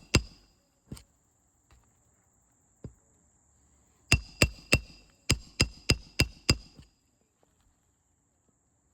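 Roofing hammer striking a metal roof snake to drive a nail under a lifted 3-tab shingle: a few single taps, then a quick run of about nine ringing metallic blows, roughly three a second. The nail goes in slowly because the roof decking is bouncy. A steady high insect buzz runs underneath.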